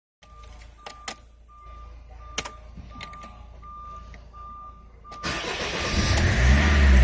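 A dashboard warning chime beeps repeatedly, with a few sharp clicks. About five seconds in, the Mercedes Vito's 2.2 CDI OM646 four-cylinder diesel cranks and starts, then runs much louder.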